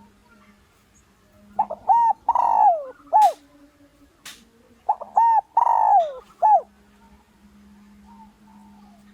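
Spotted dove cooing twice, each phrase a few short rising-and-falling coos around one longer falling note. It is a decoy bird's call of the kind used to draw wild males in to fight. A couple of sharp clicks fall between the two phrases.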